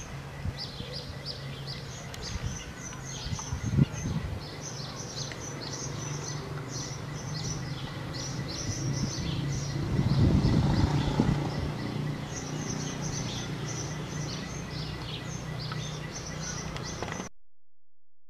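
Small birds chirping in quick repeated bursts over a low steady hum, with a few bumps and a louder low rumble partway through; the sound cuts off suddenly near the end.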